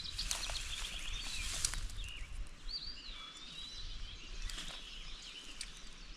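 Rustling and brushing of tall grass underfoot as someone walks through it, in short scattered crackles. A bird gives chirps and one wavering whistled call about three seconds in.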